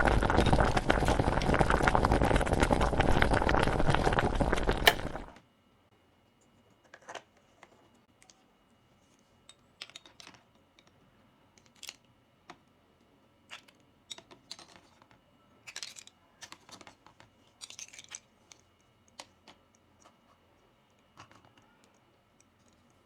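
Toy packaging and small toy pieces being handled. A loud, steady crackling rustle cuts off about five seconds in, followed by sparse light clicks and taps.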